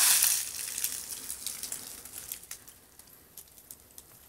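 Dry weeds and leaf litter rustling and crackling. A loud rustle at the start is followed by scattered crackles that thin out, as of someone brushing through dry brush and stepping over dry debris.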